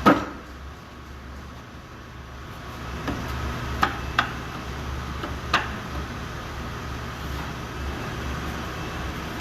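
Wooden tambour slats knocking: a sharp click at the start, then a few separate clicks about three to five and a half seconds in, over a steady low hum.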